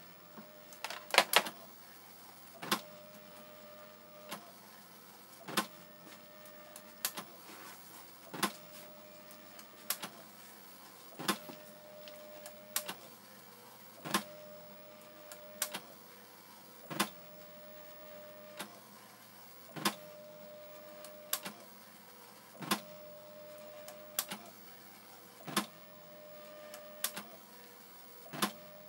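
Sanyo MPT-C10 printer printing a graphic line by line. A short mechanical whir lasts about a second, then a sharp clack, and the cycle repeats steadily about every second and a half.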